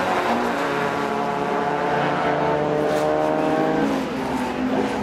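Rallycross car engine at high revs, its note climbing steadily for about four seconds and then breaking off near the end.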